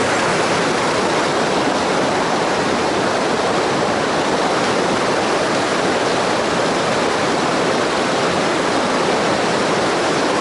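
Mountain stream water rushing, a loud steady rush without a break.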